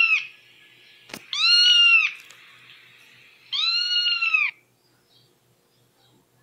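A cat meowing three times, high-pitched, each meow rising and then falling in pitch, played through a phone's speaker. A single sharp click about a second in.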